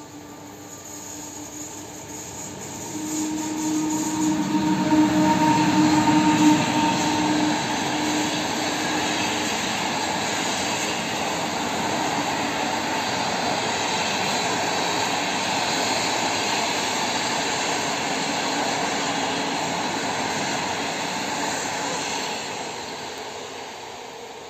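An intercity passenger train hauled by an EP09 electric locomotive passing close by at speed, loudest about five seconds in as the locomotive goes past with a steady hum. The coaches follow with a long, even rush of wheels on the rails, fading near the end.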